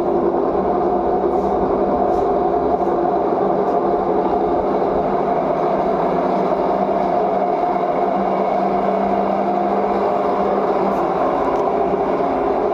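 LG front-load washing machine running with a loud, steady droning hum and rumble: the vibration noise that the owner films as a fault.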